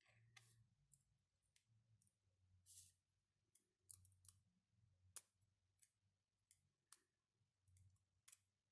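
Faint, irregular clicks and small scrapes of 3D-printed plastic counter parts being handled and fitted together as a thin metal pin is pushed through them, with a longer scratchy rustle about three seconds in, over a faint low hum.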